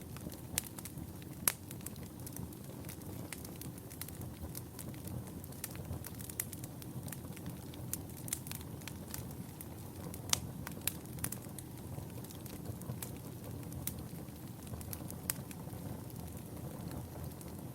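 Wood fire burning in a fireplace: a steady low rumble of flames with irregular sharp crackles and pops throughout, a few louder than the rest.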